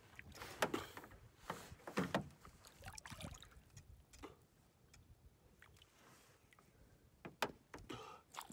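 A big hooked catfish thrashing at the water's surface, splashing in a series of short, irregular bursts.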